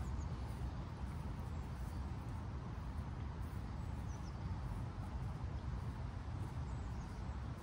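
Steady low outdoor rumble, with a few faint, brief high chirps from birds.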